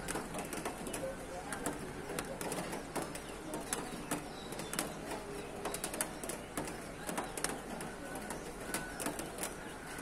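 Birds calling after rain: doves cooing low under many short, sharp high chirps, several a second.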